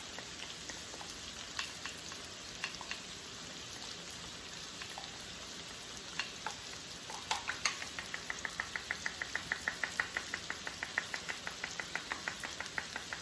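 A thick mayonnaise-based sauce stirred with a silicone spatula in a glass bowl: scattered taps at first, then from about eight seconds in a quick, even ticking of the spatula against the bowl, about five strokes a second, over a faint steady hiss.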